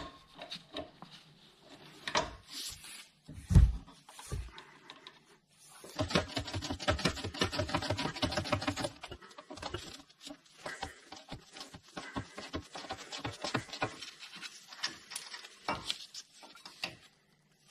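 Ratchet on an 18mm socket undoing the caliper carrier bolts on a car's front hub. A few metallic knocks come first, the loudest a heavy thump about three and a half seconds in, then rapid ratchet clicking from about six seconds in, with more runs of clicks after it.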